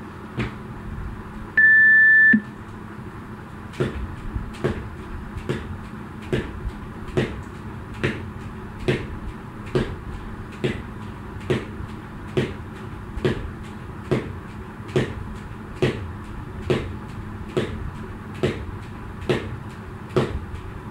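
An interval timer gives one steady electronic beep of under a second. About a second and a half later a jump rope starts slapping the floor in an even rhythm, a little more than once a second.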